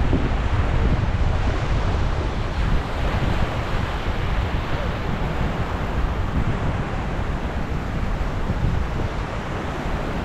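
Small Caribbean Sea waves breaking and washing up onto a sandy beach, a steady surf wash, with wind buffeting the microphone.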